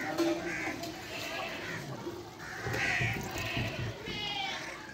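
Crows cawing several times, over faint background voices.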